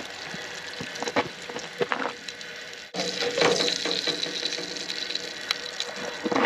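Food sizzling in a frying pan, with scattered clicks and scrapes of a utensil; the sound breaks off briefly about three seconds in.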